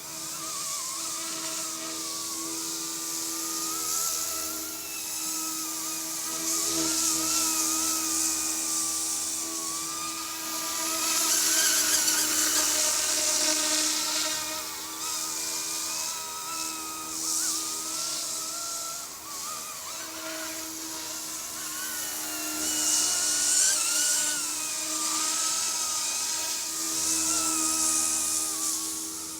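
Eachine E250 AH-64 Apache RC helicopter in flight: a steady electric motor whine and rotor whir whose pitch wavers with throttle changes, with the rotor hiss swelling louder several times.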